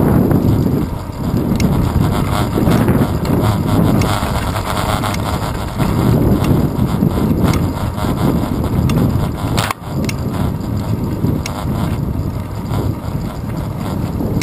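Wind buffeting the microphone of a handlebar-mounted GoPro Hero 2 on a moving bicycle, a deep gusty rumble mixed with tyre and road noise. A single sharp click about two-thirds of the way through.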